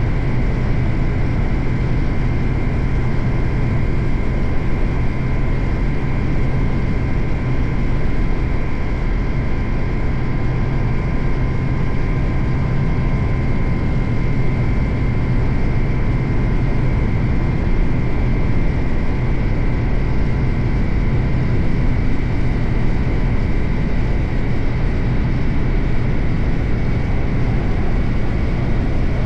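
Suzuki GSX-8R's 776 cc parallel-twin engine running at steady revs under way, with a continuous rush of wind and road noise over it.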